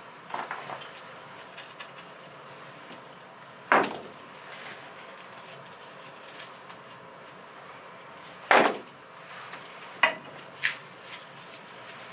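Hatchet chopping a short log stood on a brick stove, splitting firewood: two loud sharp blows about five seconds apart, then two lighter knocks in quick succession near the end, with a brief clatter at the start.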